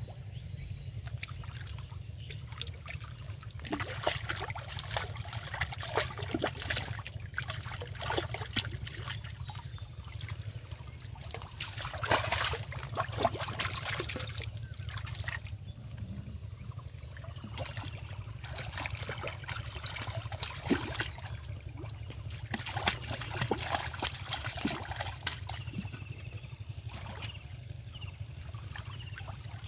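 Hands splashing and sloshing in shallow muddy water while groping through the mud for fish, in irregular bouts with short pauses between, over a steady low hum.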